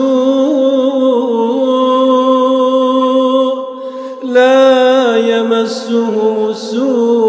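Male voice reciting the Quran in melodic tajweed style, holding long drawn-out notes with slow ornaments. The voice drops away briefly about four seconds in, then comes back on a new held note.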